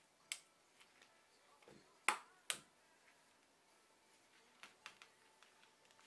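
Sharp clicks of a small neodymium magnet against the steel blade of a carving gouge as it is levered out of its hole in a wooden branch: one click about a third of a second in, a louder pair around two seconds in, half a second apart, and a few faint ticks later on.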